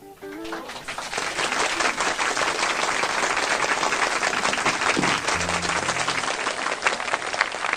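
An audience applauding steadily. It builds up within about a second as the last guitar notes die away.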